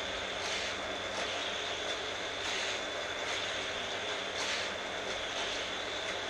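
Battery-powered Hot Wheels track boosters running with a steady electric whine. The die-cast cars swish through them as they lap the orange plastic track, making the sound swell briefly every second or so.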